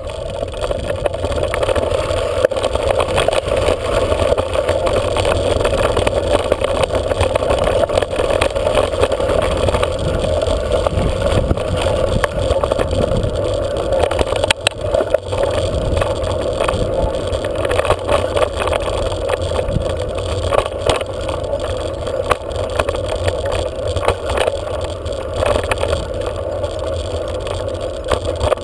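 Steady noise of a bike rolling over a gravel and dirt track, picked up by a camera mounted on the bike, with many scattered knocks and rattles from bumps.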